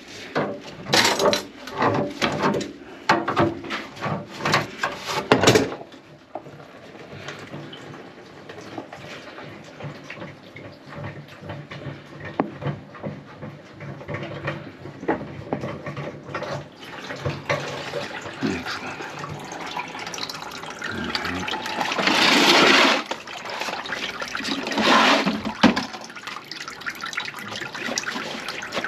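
Knocks and clatter for the first few seconds, then water from a grease-clogged kitchen sink drain running and pouring out, with two louder gushes near the end.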